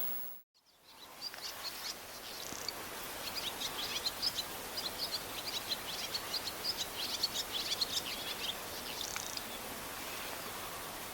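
Barn swallow twittering: a long run of quick high chirps and warbles starting about a second and a half in and tailing off near the end, over a steady background hiss.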